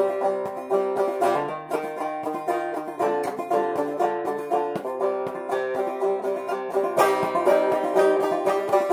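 Five-string banjo played clawhammer style in fCGCD tuning: a steady rhythm of quick plucked notes and brushed-down strums, a little louder and brighter about seven seconds in.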